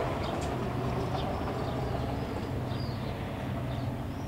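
Low, steady hum of ship engines from the tanker and its attending tugboats, with several short bird chirps over it.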